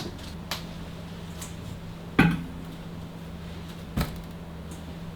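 Three light knocks or clinks of household objects, the loudest about two seconds in, over a steady low hum.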